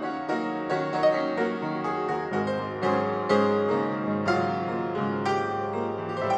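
Background piano music: a melody of struck notes, several a second, ringing over held lower notes.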